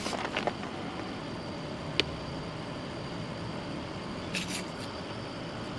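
Blue painter's tape being pulled off the roll and laid along the edge of a truck's fender flare: a few short pulls near the start and again past the middle, with one sharp click about two seconds in. A steady background hiss runs under it.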